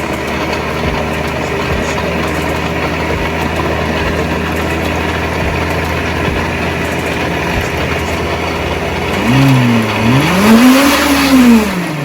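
Electric kitchen blender running, chopping ginger, lemon juice, cloves and water. Near the end its motor pitch rises and falls twice as the speed changes.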